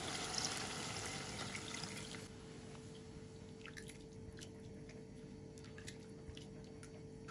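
Water sizzling as it meets hot fried minced meat in a pan; the hiss dies down about two seconds in. After that comes a plastic spatula stirring the watery meat mixture, with scattered light clicks and splashes of liquid.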